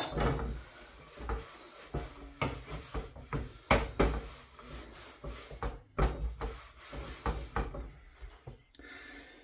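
Kitchen clatter while a surface is wiped down: rubbing of a cloth with irregular knocks and thuds of items being moved about, a sharp knock at the very start.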